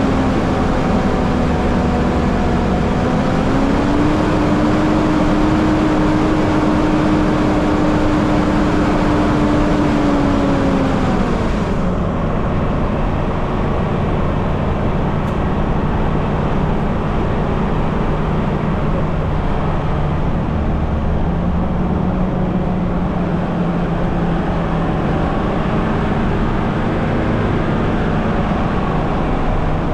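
Mitsubishi Challenger 4WD's engine running as it drives up a dirt trail, over a steady hiss of wind and tyre noise. The engine note rises a little a few seconds in, then drops noticeably about twelve seconds in, when the high hiss also fades.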